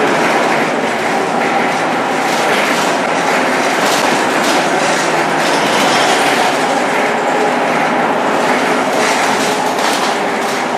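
Scania K230UB city bus under way, heard from inside the passenger cabin: a steady engine and ZF 6HP502C automatic gearbox drone over road noise, with repeated clicking and rattling from the body and fittings.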